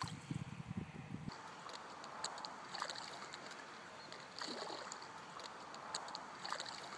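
Water sloshing at the lake edge for about a second, then faint, scattered small splashes as handfuls of thrown carp bait land on the lake surface.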